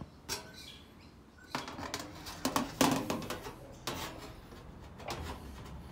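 Scattered knocks, clicks and rubbing as a large aluminium sheet panel is handled and shifted at an English wheel.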